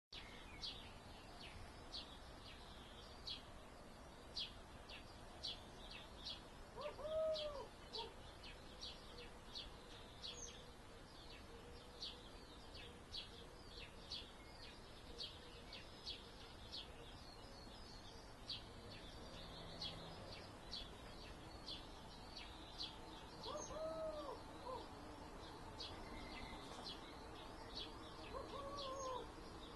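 Faint countryside morning ambience: a small bird repeating a short high chirp about twice a second, and a lower arching call heard three times, once about a quarter of the way in and twice near the end. Underneath is a steady hum of far-away traffic.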